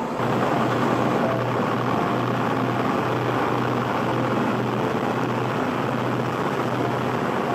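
Passenger ferry's engine running steadily under way: a constant low drone with a broad rushing noise over it.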